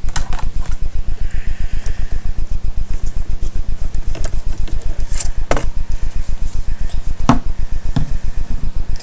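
Low electrical buzz, pulsing rapidly and evenly, with a few sharp clicks and taps of small plastic Lego pieces being handled, the clearest about five and seven seconds in.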